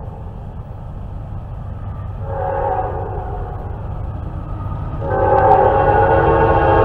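Diesel freight locomotive's air horn sounding as the train approaches, several notes at once. One blast about two seconds in lasts about two seconds, and a second, louder blast starts about five seconds in and holds, over a low rumble.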